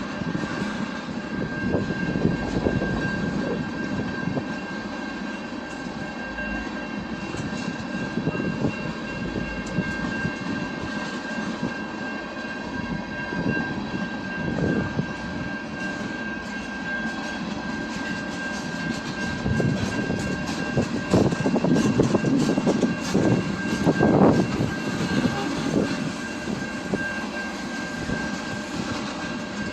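Train passing on the tracks: a steady rolling rumble with a thin, steady high whine over it. The rumble grows louder, with a run of sharp knocks, about twenty to twenty-five seconds in.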